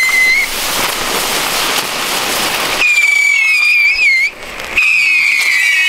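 Whistling ground fireworks (chifladores) going off from a burning string. A short whistle at the start gives way to about two seconds of dense crackling hiss. Then a wavering high whistle sounds, there is a brief lull, and near the end several whistles shriek together, slowly falling in pitch.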